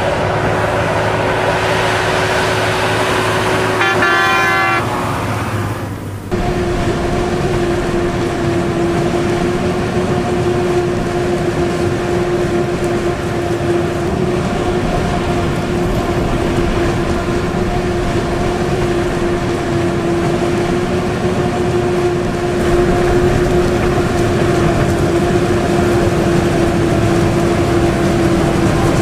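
Heavy farm machinery running steadily, a constant engine tone over a broad mechanical noise. There is a brief rapid rattling pulse about four seconds in. The sound switches abruptly about six seconds in to a different steady whine, as a forage harvester chops standing maize.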